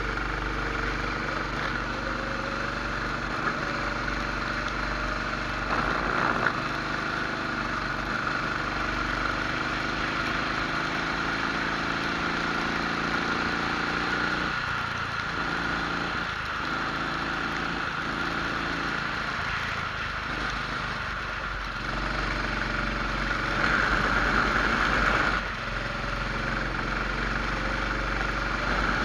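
Rental kart engine heard on board, its pitch rising and falling as it accelerates down the straights and drops off into the corners.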